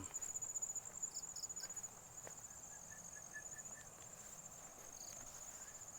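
Insects trilling steadily in a high, rapid pulsing chorus, with three short higher chirps about a second in and a faint run of short notes around the middle.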